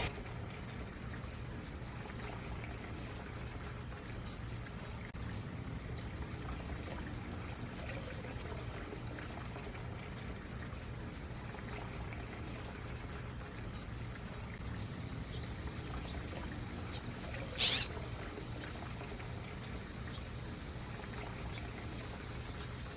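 Stream water trickling and pouring steadily, with one brief sharp sound about three-quarters of the way through.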